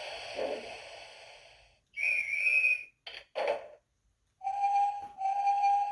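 Electronic sound-book sound effect of a steam train: a puffing steam hiss fades out, then a guard's whistle blows once, a door clunks shut, and the train whistle gives two toots.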